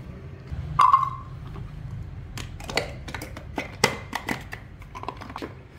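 Light clicks and knocks of plastic kitchenware being handled on a plastic cutting board, including a small white mini chopper, with a short squeak about a second in. The clicks come quickly and unevenly in the second half.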